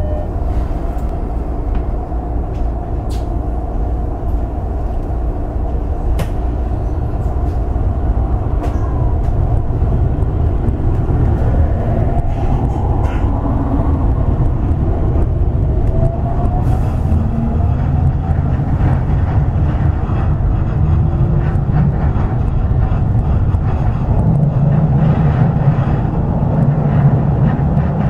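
Toei 10-300 series electric train running on the rails and gathering speed: a steady low rumble of wheels on track, a few sharp clicks early on over rail joints, and a motor whine that rises in pitch partway through.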